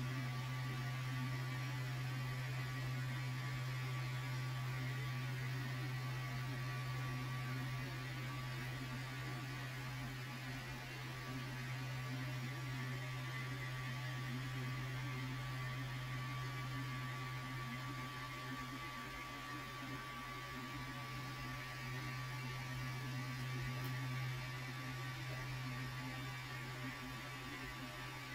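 A steady low electrical hum, with a faint thin high tone held above it.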